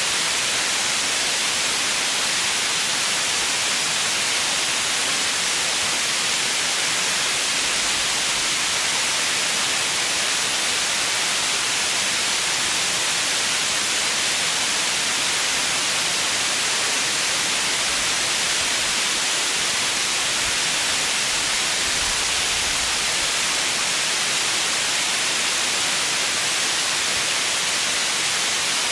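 Steady white noise: an even, unbroken hiss, brightest in the treble, with no change in level.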